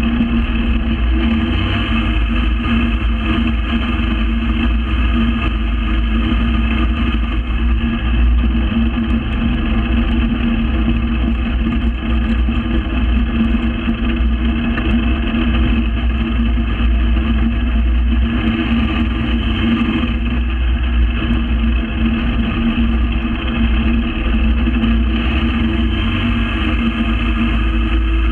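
Gyrocopter engine idling steadily on the ground, a constant low drone with a fixed pitch that does not rise or fall.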